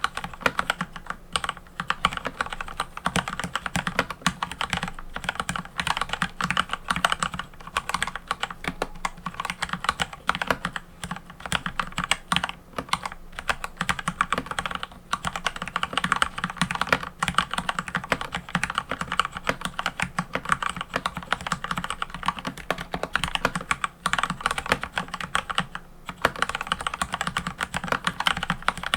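Mechanical keyboard being typed on fast and without letup, a dense run of key clicks with a couple of brief pauses.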